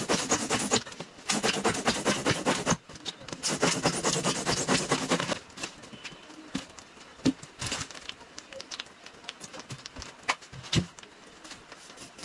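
Hand saw cutting through a thick block of polystyrene foam: fast, scratchy rasping strokes in three runs over the first five seconds, then only faint scattered clicks and rustles.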